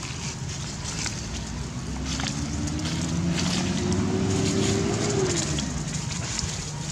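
A motor vehicle's engine passing by: its hum rises in pitch over a few seconds, then drops about five seconds in as it goes past. Short rustles, likely dry leaves, sound over it.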